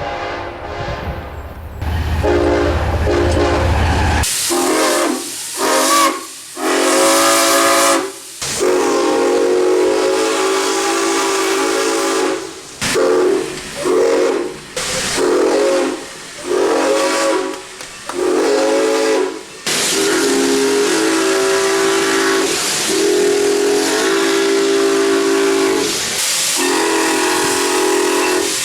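For about the first four seconds, a diesel locomotive's air horn sounds over the low rumble of the engine. Then a steam locomotive's chime whistle blows a long series of blasts with steam hiss: a few long ones lasting several seconds, and a run of short toots in between, some swelling in pitch.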